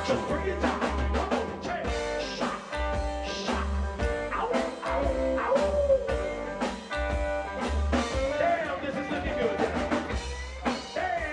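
Live rockabilly-style blues band playing: drum kit keeping a steady beat, upright double bass pulsing and electric guitar, with a male singer's voice coming in over the band in the second half.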